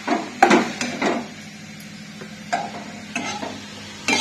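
Spatula stirring chopped tomato, onion and green chili in a kadhai, a series of uneven scraping strokes against the pan, the loudest about half a second in.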